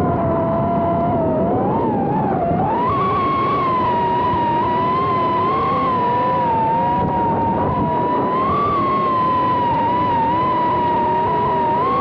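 Small multirotor FPV drone's motors and propellers whining steadily, the pitch wavering with throttle and stepping up a few seconds in.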